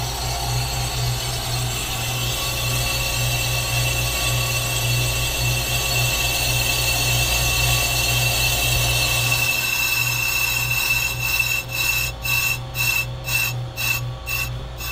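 Hunter bench brake lathe turning a hubless brake drum while the cutting bit takes a cut: a steady motor hum under a scraping hiss with a high ringing tone. About eleven seconds in, the ring breaks up into pulses about twice a second, then stops as the cut finishes.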